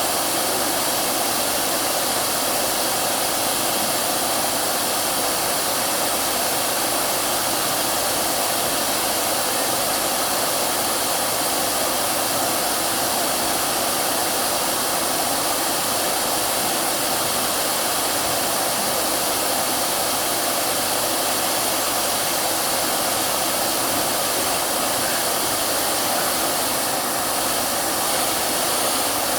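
Hair dryer running steadily, an even hiss of blowing air and motor noise with no change in level, used as white noise to soothe a crying baby.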